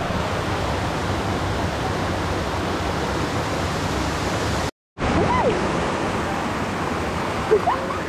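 Steady rush of a waterfall cascading over rock into a pool. The sound is broken by a split-second silent gap a little over halfway through.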